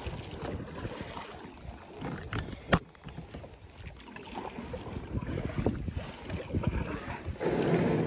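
Wind buffeting the microphone over water moving around a plastic kayak hull, with one sharp knock about three seconds in. Near the end a rougher, louder scraping as the hull runs up onto the gravel bank.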